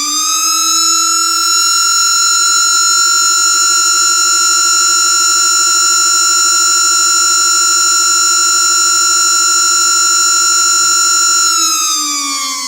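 Homemade 3D-printed mechanical siren, spun by a server fan, sounding as an alarm clock. Its loud steady tone with strong overtones settles within the first second, holds, then starts to fall in pitch near the end as the fan winds down.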